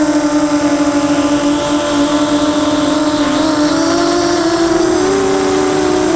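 Brushless motors and propellers of a 250-size Nighthawk racing quadcopter whining in flight, heard from its onboard camera. The pitch sags a little, then climbs about four to five seconds in as the throttle comes up.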